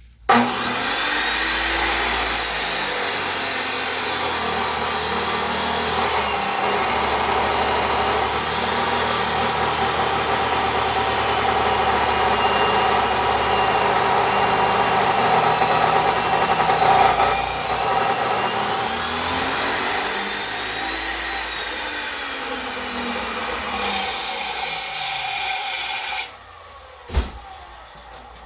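Power tool cutting through 5/8-inch metal bar stock: a loud, steady cutting noise with a motor whine that rises and falls in pitch a few times. It stops about two seconds before the end, followed by a single sharp knock.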